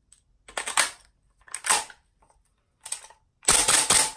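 Type 89 gas-blowback airsoft rifle being handled as its magazine is inserted: several short clacks and rattles of magazine against receiver, the loudest near the end as it seats.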